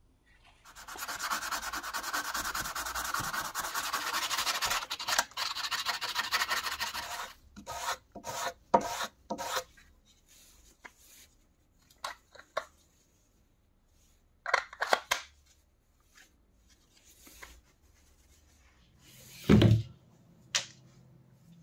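Black Kydex sheath sanded against the green abrasive belt of a belt grinder: a steady scraping noise for about six seconds. Then a series of short plastic clicks and snaps as the knife is pushed into and pulled from the sheath, and a single thump near the end.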